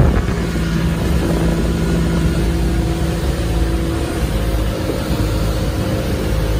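Capri bowrider motorboat under way on open water: its engine drones steadily, mixed with wind and water noise.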